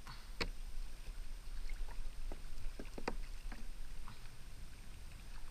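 Ambient sound aboard a kayak on the sea: a steady low rumble of wind and water with a scattering of light clicks and knocks, the sharpest about half a second in and a cluster around three seconds in.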